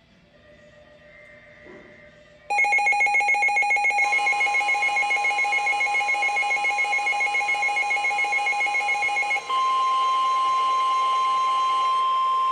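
Weather radio receiver alerting for a tornado warning. About two and a half seconds in, a loud pulsing alarm beep starts, about four or five pulses a second. A second and a half later the steady 1050 Hz NOAA warning alarm tone joins it. Near three-quarters of the way through the pulsing beep stops and the steady tone carries on alone.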